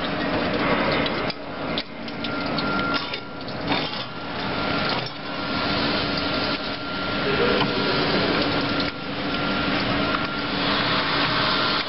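Steady hum of running machinery with scattered metallic clicks and knocks, busiest in the first five seconds, as wire is handled and fed through the roller straightener of a chain link fence machine.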